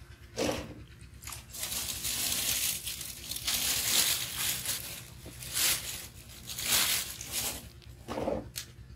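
A hand rubbing and squeezing a thick yogurt-and-spice marinade into a whole raw chicken in an earthenware bowl: wet squelching and smearing in irregular bursts.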